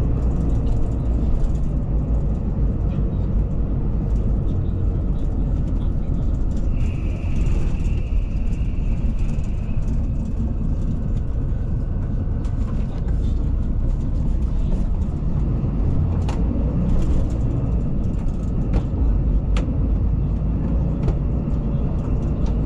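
Cabin of a moving coach bus: steady engine and road rumble, with a thin high whine for a few seconds about seven seconds in and a few sharp rattles or clicks later on.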